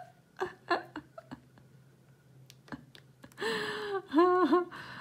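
A woman making short wordless vocal sounds, like humming, about three and a half seconds in, after a few faint taps.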